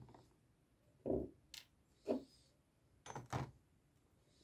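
Metal faucet parts, brass nuts and chrome cross handles, being set down into a plastic tub of soaking liquid: a few separate soft knocks and clicks about a second apart, with two quick knocks near the end.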